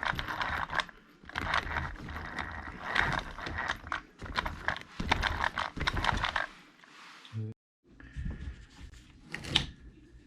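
Small parts of an RC truck being handled on a workbench: repeated clicks, rattles and scrapes of plastic and metal pieces. The sound cuts out completely for a moment near the end.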